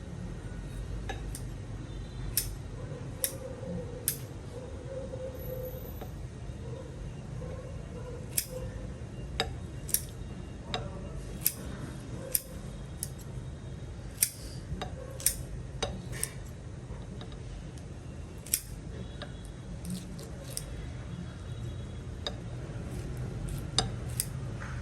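Sharp, irregular clicks and clinks of kitchen utensils against dishes, about one every second or so, over a low steady hum.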